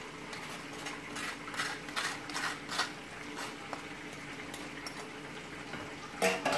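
Table knife scraping sauce across a toasted burger bun: a run of soft, quick scrapes, then a short clatter of utensils about six seconds in.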